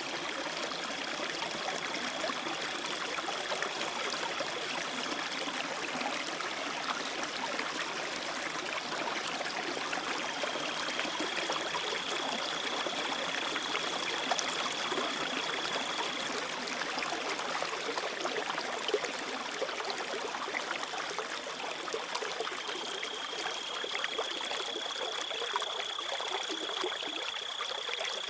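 A small stream trickling and burbling steadily, with crickets giving a continuous high trill that drops out twice and comes back, in three long stretches.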